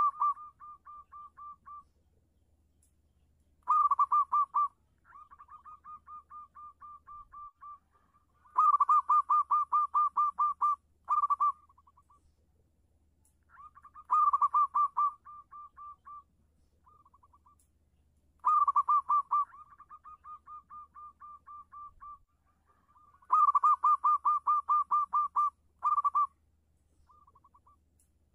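Zebra dove (perkutut) cooing: its call phrase of rapid, stuttering coos, repeated about every five seconds. Each phrase starts loud and trails off into a softer, longer run of notes.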